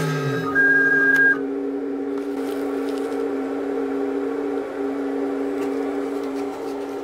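3040 CNC mill's spindle winding down as the cut ends, its pitch falling away, followed by a loud single beep of under a second. After that the machine sits idle with a steady electrical hum.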